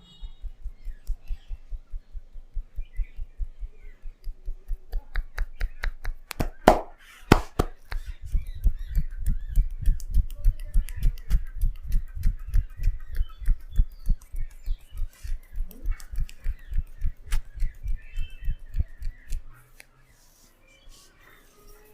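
Hands tapping rhythmically on a person's head during a tapping head massage: a fast, even run of low, dull thumps, about four to five a second, that stops near the end. Two loud sharp smacks come about seven seconds in.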